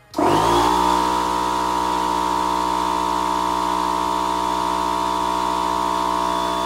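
Norton Dominator parallel-twin engine that starts running about a second in, picks up briefly and then holds a steady speed with a strong pitched tone, the weird engine sound the owner is afraid of.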